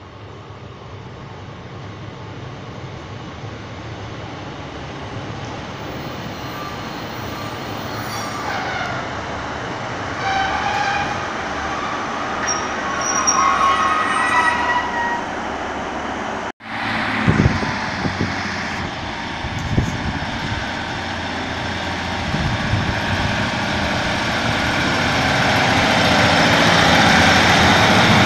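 First Great Western Class 150 Sprinter diesel multiple unit approaching along the platform, getting steadily louder as it draws alongside, with thin squealing tones in the middle. The sound cuts out for an instant about two-thirds of the way through, followed by a few low thumps.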